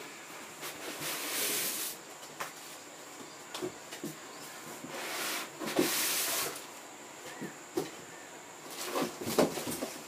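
Large cardboard TV box being slid up and lifted off the television: three stretches of cardboard scraping and rustling, with scattered knocks and bumps between them.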